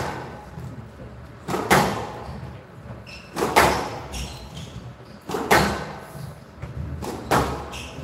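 Squash ball being struck by racquets and smacking off the walls of a glass-walled court in a rally. Sharp, echoing hits come about every two seconds, five in all.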